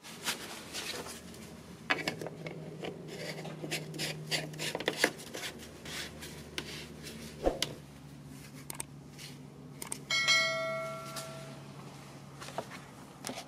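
Plastic cap of a Mercedes-Benz coolant expansion tank being screwed back on and turned until fully closed by a gloved hand: a run of irregular plastic clicks and glove-on-plastic rubbing over a low steady hum. About ten seconds in, a short bell-like ding rings out and fades over a second or so.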